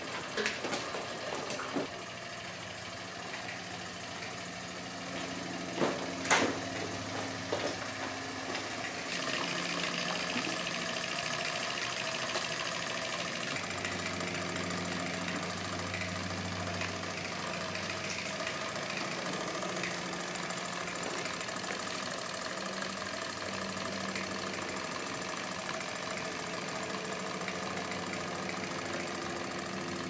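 Small model-boat steam engine, fed from a homemade boiler, running steadily, its low pitch shifting now and then. A few sharp clicks about six seconds in.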